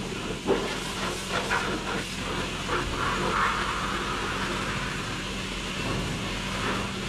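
Self-serve car wash pressure wand spraying rinse water onto a truck's body: a steady hiss of water with a steady low hum underneath.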